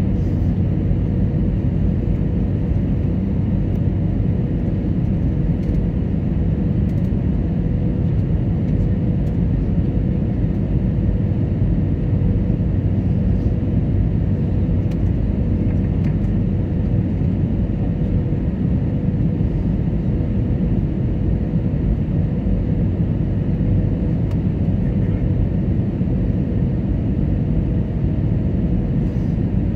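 Steady cabin noise inside an Airbus A320neo in descent: a deep, even rumble of engines and airflow with a faint steady hum on top.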